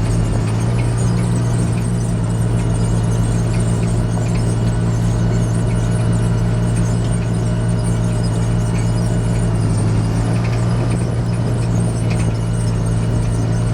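John Deere 8410 tractor's diesel engine running steadily, a constant low drone with a faint high whine above it.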